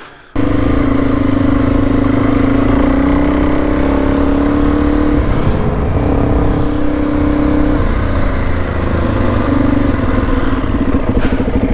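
Suzuki DR-Z400E single-cylinder four-stroke engine running under way, cutting in suddenly about half a second in. The steady engine note drops briefly about five seconds in and again around eight to nine seconds in.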